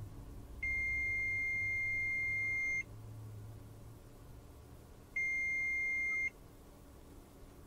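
Mustool MT111 multimeter's continuity beeper sounding as its probe tips touch: a steady high-pitched beep of about two seconds, then a second, shorter beep of about a second. The beep signals a closed circuit, a near-zero resistance across the probes.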